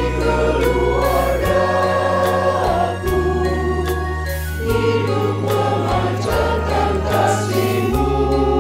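Mixed choir of men's and women's voices singing an Indonesian church song in parts, over instrumental accompaniment holding low bass notes that change every second or so.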